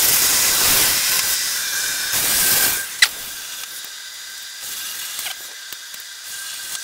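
CNC plasma cutter's arc hissing loudly as it cuts through 2 mm sheet plate, stopping abruptly about three seconds in with a sharp click. A much quieter hiss with a thin steady whine follows.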